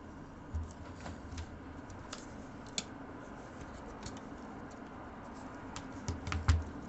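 Scattered light clicks and taps of small tools and laptop parts being handled, with a louder cluster of knocks about six seconds in.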